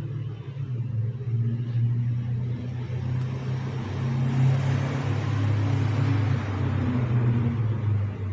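Steady low-pitched mechanical hum, the loud noise complained of. A vehicle-like rushing sound swells in the middle and fades again.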